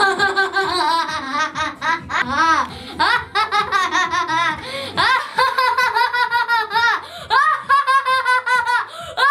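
A boy laughing hard and long in a high voice, in quick repeated ha-ha pulses.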